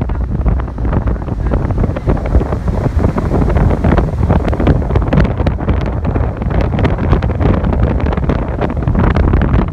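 Storm wind buffeting the microphone without a lull, over heavy storm surf breaking on the beach.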